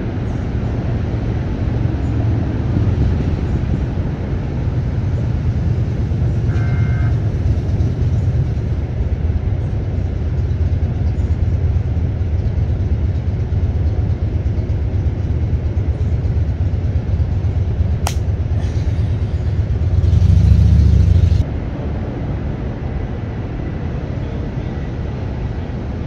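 A steady, low outdoor rumble with no voices, of the kind made by wind on the microphone or distant traffic. It swells louder for about a second and a half roughly three-quarters of the way through, shortly after a single sharp click.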